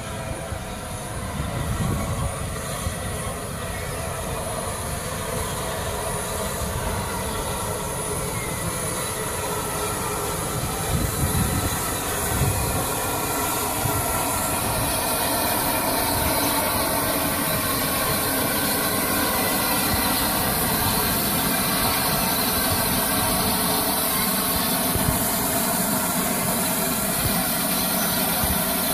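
Rebuilt Battle of Britain class steam locomotive 34053 Sir Keith Park drawing slowly into the station with its coaches, growing louder as it approaches. Wheels and brakes squeal in several steady tones over the rumble of the train.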